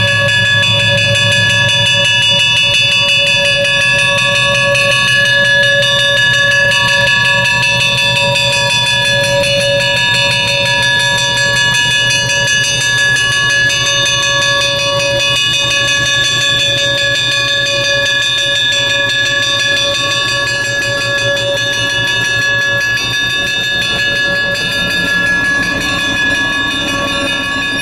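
Locomotive bell ringing steadily on Milwaukee Road 760, a Fairbanks-Morse H-10-44 diesel switcher, as it rolls slowly past. Its diesel engine runs beneath the ringing.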